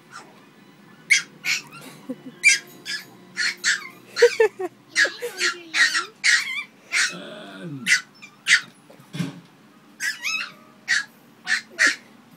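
Chihuahua yapping in play, a rapid string of sharp, high-pitched barks two or three a second. About seven seconds in comes a lower, drawn-out call that falls in pitch.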